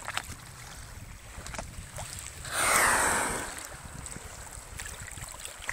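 Wind rumbling on the microphone and water lapping against an inflatable kayak on choppy open sea, with small water clicks and drips. About two and a half seconds in, a single rushing splash of water swells and fades over about a second.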